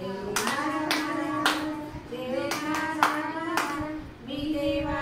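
A woman singing a Marathi children's rhyme, with hand claps keeping the beat about twice a second. The clapping stops a little past the middle while the singing goes on.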